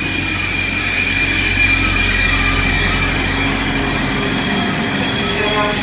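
Hull Trains Class 180 diesel multiple unit running slowly into the platform: a steady rumble of its engines and wheels on the rails, growing slightly louder, with a high steady squeal over it as it brakes to terminate.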